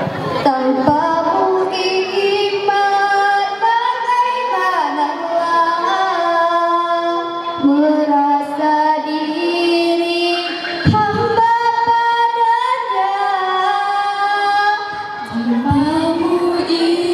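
Group of young women singing a nasyid (Islamic devotional song) together into microphones, in long held notes phrase by phrase with short breaks between phrases.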